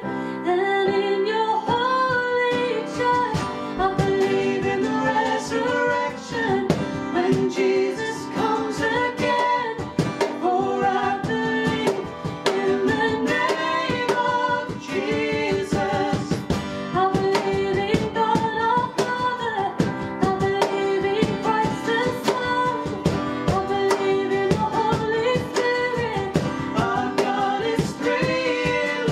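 A worship song: a sung melody with a female voice, over strummed guitar accompaniment.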